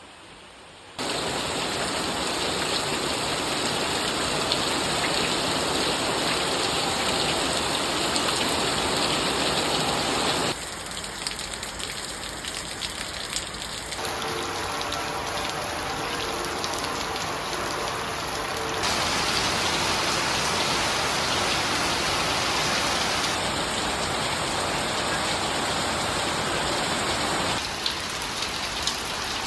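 Rain falling steadily, a dense even hiss that starts abruptly about a second in. Its loudness and tone change suddenly several times, as where separate recordings are joined, and for a few seconds in the middle a faint steady hum lies beneath it.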